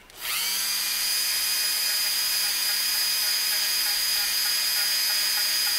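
Dremel rotary tool starting up and quickly reaching speed, then running steadily with a high whine while its wire brush scrubs light tarnish off a small steel screw head.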